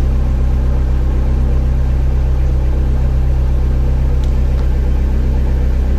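A sewer jetter's engine running at a steady speed: an even, deep drone that does not change.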